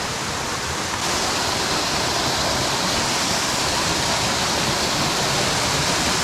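Small waterfall in a canyon creek, a steady rush of falling and splashing water that grows a little louder about a second in.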